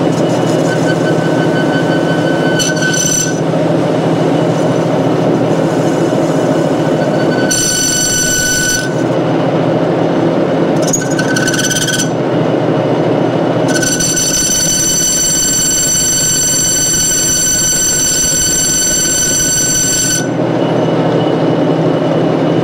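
Metal lathe running with a steady hum while its new cutting insert turns a bearing race. The cut squeals, a high whistling tone that comes and goes: a few short spells, then one long one of about six seconds in the second half.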